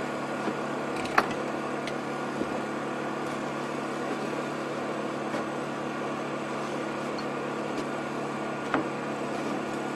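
Steady mechanical hum, with a few sharp clicks, the loudest about a second in and another near the end.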